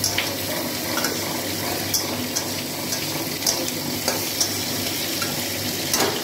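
Potato wedges and onion sizzling in oil in a steel kadai, with a spatula scraping and knocking against the pan now and then as they are stirred.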